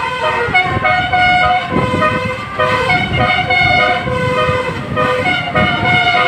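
Indonesian bus's multi-tone basuri 'telolet' horn playing a melody, its notes changing every half second or so, over a low engine rumble.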